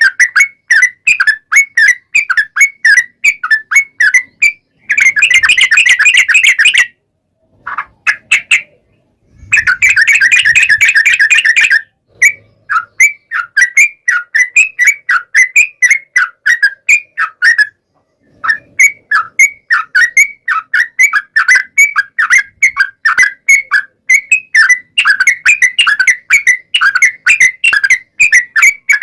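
Yellow-vented bulbul (trucukan) singing: quick strings of short whistled chirps, about three or four a second, broken twice by a long rapid trill, the first about five seconds in and the second about ten seconds in.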